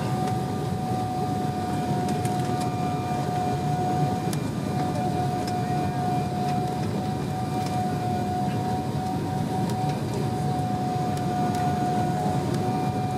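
Cabin noise inside an Embraer 195 jet on final approach: a steady low rumble of airflow and the turbofan engines, with a steady whining tone held over it.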